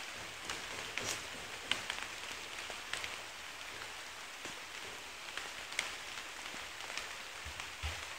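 Steady soft hiss with scattered light ticks and taps.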